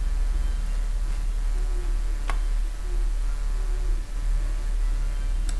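Steady low electrical mains hum, with two faint clicks, one a little over two seconds in and one near the end.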